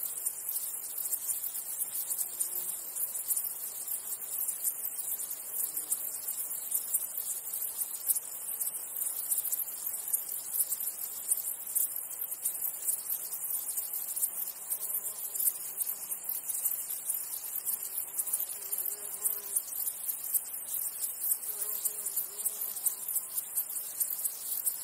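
Chorus of stridulating insects: a steady, dense, high-pitched chirring made of very fast pulses.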